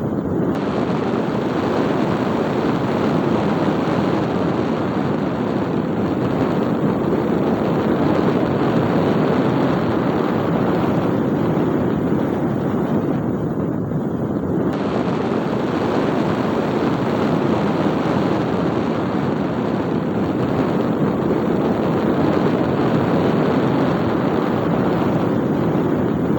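Electric arc welding: the arc burning with a steady, continuous crackling hiss, thinning briefly in its upper part about halfway through.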